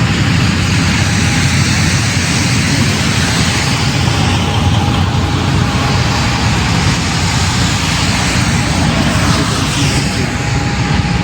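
Steady, loud road-vehicle noise: a continuous rush with a low rumble beneath it.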